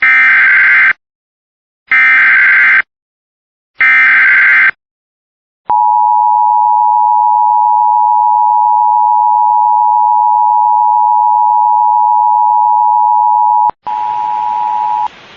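Emergency Alert System tones for a flash flood warning: three one-second bursts of shrill digital SAME header data with short gaps, then a single steady attention tone held for about eight seconds. It cuts off into radio hiss with a fainter tone near the end.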